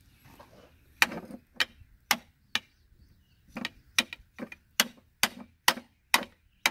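Sharp metal-on-metal taps, about a dozen at roughly two a second with a short pause partway through, as a long screwdriver is knocked against the oil pump of a John Deere 6466 diesel engine to work it loose.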